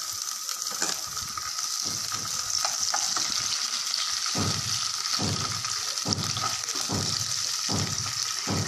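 Sliced garlic and green chillies sizzling in hot oil in a nonstick kadai, with a spatula stirring and scraping through them. The oil hisses steadily; from about halfway through the spatula strokes come regularly, a little more than one a second.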